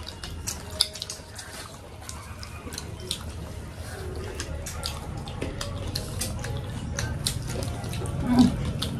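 Several people eating with their hands: many small wet clicks of chewing and lip-smacking as fingers pick at rice and fried food on banana leaves. One short, louder low sound near the end.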